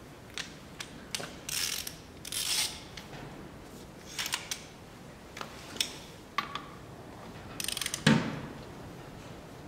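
Hand tools at work on a car's front brakes: short spells of ratchet wrench clicking among scattered metallic clicks and knocks.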